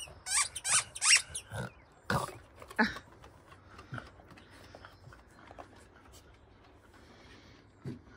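Dog barking in play: a quick run of about six sharp, high barks in the first three seconds, then quieter, with one short low bark near the end.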